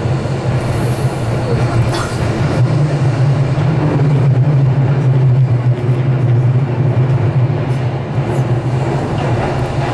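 Inside a Keihan electric train running through a tunnel: a steady low rumble of wheels and motors, growing louder a few seconds in and easing off a little near the end.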